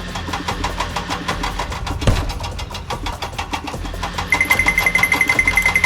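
Construction vehicle engine running with a fast, even chug and a low hum, with one thump about two seconds in. From about four seconds in, a high-pitched, rapidly pulsing tone joins it.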